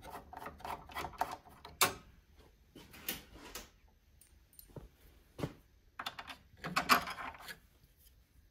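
Scattered clicks and light metallic taps of a hand screwdriver and screws being worked against the steel panel and bracket of a vending machine door. They come in short clusters, with a louder clatter about two-thirds of the way through.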